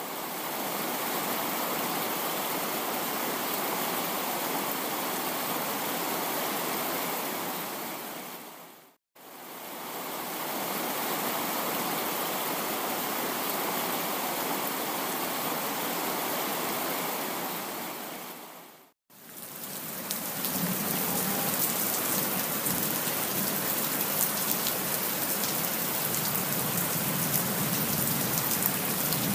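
Steady rain falling, an even hiss. It fades out and back in twice, about a third and two-thirds of the way through, and is brighter and more crackly after the second gap.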